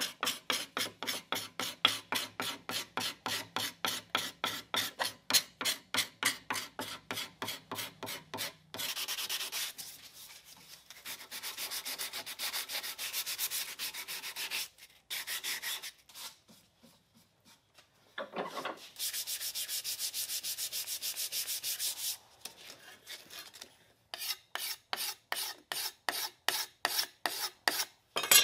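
Walnut shotgun stock being smoothed by hand with sandpaper and a file: rhythmic back-and-forth scraping strokes, about three a second, with stretches of faster, continuous rubbing in the middle and a short pause.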